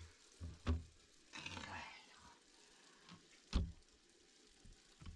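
Two sharp knocks about three seconds apart, with a short noisy stretch between them.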